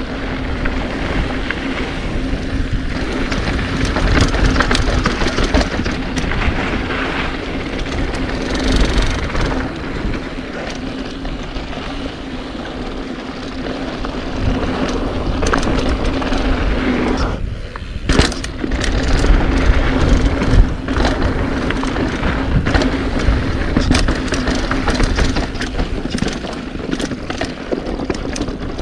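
Mountain bike riding fast down a dirt bike-park trail: wind rushing over the microphone, tyres rolling on dirt and the bike rattling and knocking over bumps, with a steady low hum underneath that breaks off briefly about seventeen seconds in.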